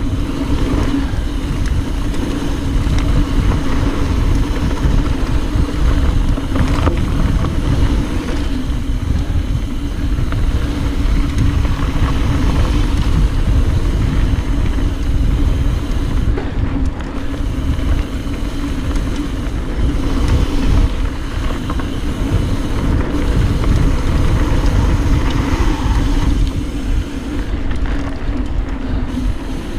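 Wind buffeting a chest-mounted action camera's microphone, with tyres rumbling and the bike rattling over a dirt trail on a fast mountain-bike descent. A steady drone runs underneath.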